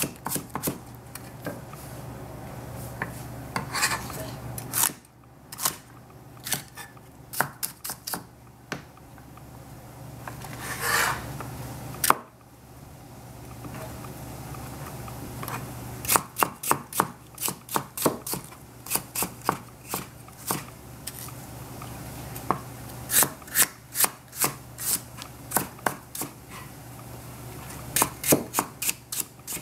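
Chinese cleaver chopping celery on a plastic cutting board: runs of quick, sharp knocks, about four or five a second, broken by short pauses.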